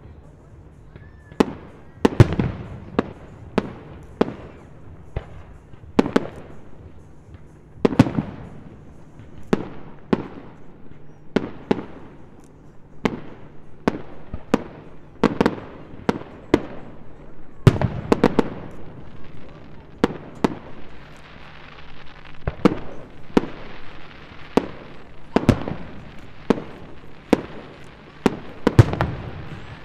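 Fireworks display: aerial shells bursting in an irregular run of sharp bangs, about one to three a second, each with an echoing tail. A little past the middle, a stretch of hiss joins the bangs.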